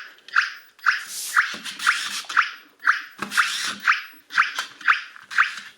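DEERC DE33 toy RC car's electronic sound effect: short chirps repeating about twice a second, with the whir of its drive motor and wheels in between, while the car runs in auto-follow mode.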